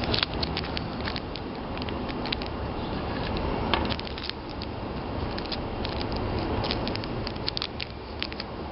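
Handling noise: scattered light clicks and crackles over a steady hiss, as small plastic miniature pieces are moved about.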